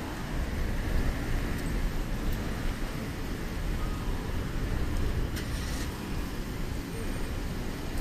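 City street traffic: cars running and idling on a multi-lane road, a steady low rumble, with a short hiss a little past halfway.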